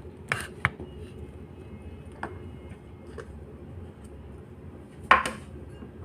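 A few separate clinks and knocks of kitchen utensils against dishes while preparing a marinade, spaced irregularly, with the loudest knock near the end.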